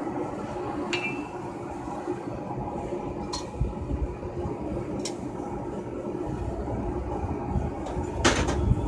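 A handful of light metallic clinks as a steel hammer and tools are set down on and around an anvil, the first about a second in with a brief ring and the loudest near the end, over a steady machine whir.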